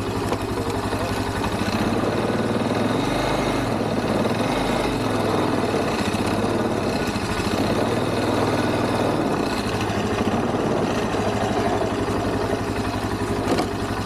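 Quad (ATV) engine running steadily as the four-wheeler drives slowly up a snowy driveway, with a short knock near the end.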